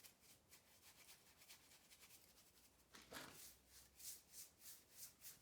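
Faint, rhythmic scrubbing strokes of a kerosene-wet brush on a chainsaw's plastic housing, about two to three strokes a second, breaking up old caked grease and dirt. A brief louder sound comes about three seconds in.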